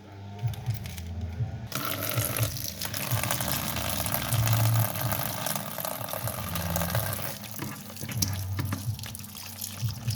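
Water running from a kitchen tap into a sink: a steady rush that starts suddenly about two seconds in and keeps going.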